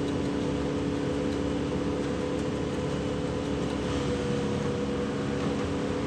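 An engine running steadily at an even speed, with a constant hum and no revving.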